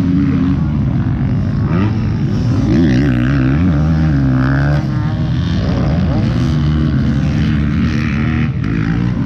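Motocross dirt bike engines revving up and down as riders go round the track, the pitch rising and falling repeatedly, with more than one bike heard at once.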